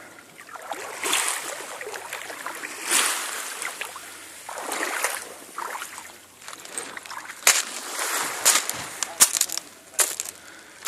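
Small sea waves washing onto the beach, swelling and falling back every couple of seconds, with a few sharp clicks near the end.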